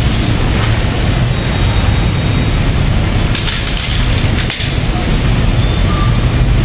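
Steady low rumble of street-side background noise, with a short burst of crinkling and clicks about three and a half seconds in as a styrofoam takeaway box is pressed shut.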